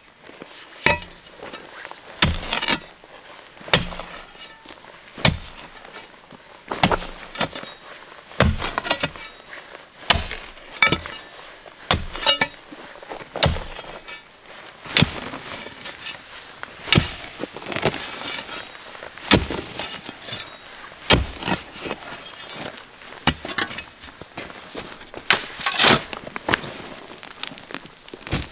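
Sharp knocks and clinks repeating irregularly, about one every second or so, some ringing briefly: hard materials being struck by hand during building work.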